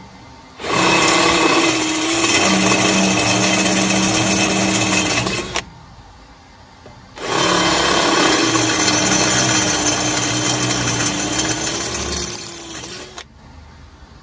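Bosch 14.4 V cordless drill boring into steel with a twist bit. It runs twice, about five to six seconds each time, with a short pause between, the motor holding a steady whine while the bit cuts.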